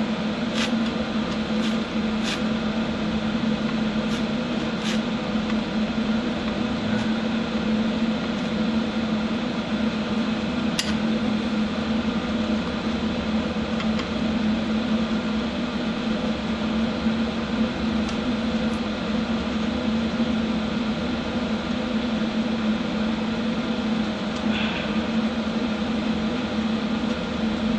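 HHO hydroxy gas welding machine running with a steady electrical hum while its torch burns, with a few faint clicks along the way.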